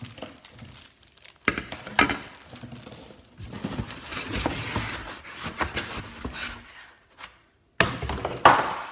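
Cardboard box and molded paper-pulp packing insert being handled: two sharp knocks, then scraping and rustling as the insert is shifted and lifted out. Near the end comes a louder rustle with a sharp knock.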